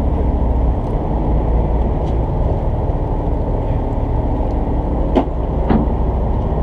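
Fishing boat's engine running steadily at idle: a constant low rumble with no change in pitch.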